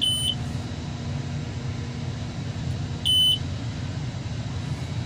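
Two short high-pitched beeps, about three seconds apart, from the Mercedes-Benz 1620 truck's dashboard warning buzzer, over a steady low engine rumble.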